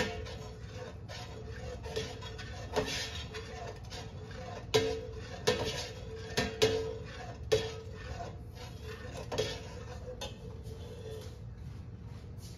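Long stainless steel ladle stirring soy milk in a large stainless steel stockpot, knocking and scraping against the pot's side and rim with short ringing clinks. About ten clinks come at uneven intervals, the last one about ten seconds in.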